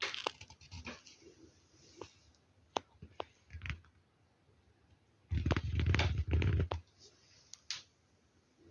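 Scratching and rustling on a nylon tent and its floor mat: scattered light scratches and clicks, then a loud rustle lasting about a second and a half, starting a little past five seconds in.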